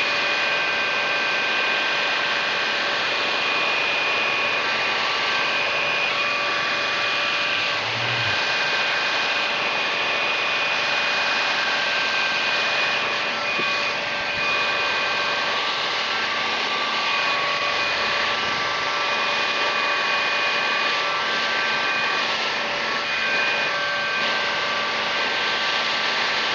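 Electric heat gun running: a steady rush of blown air with a constant fan-motor whine.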